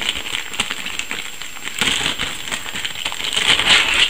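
Clear plastic bag crinkling and crackling as a 120 mm computer fan is pulled out of it, louder about two seconds in and again near the end.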